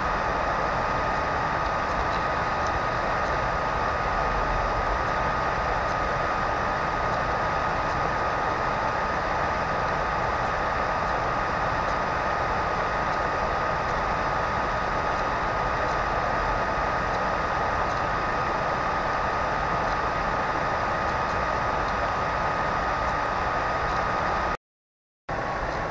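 Steady hiss of a computer recording microphone with a constant high whine on top, broken near the end by a brief cut to dead silence.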